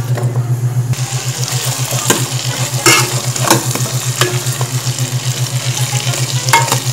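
Potato, carrot and bell pepper cubes sizzling as they fry in butter in a metal pan, the sizzle growing about a second in. A metal utensil stirs them with occasional scrapes and clacks against the pan, over a steady low hum.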